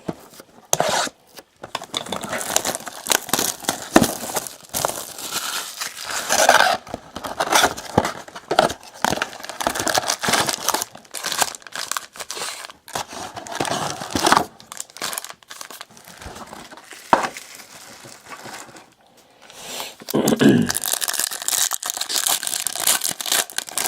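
Plastic wrapping on trading-card boxes and packs being torn open and crumpled, a steady run of irregular crackling and crinkling.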